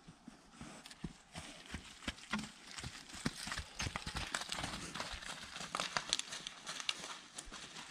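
Horse hooves clopping and shuffling in irregular steps: many scattered knocks, denser and louder from about a second in.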